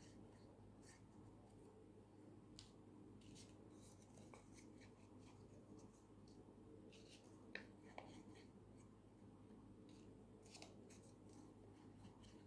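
Near silence: faint rustles and light clicks as folded paper circles are handled and dabbed with glue from a squeeze bottle, over a low steady hum.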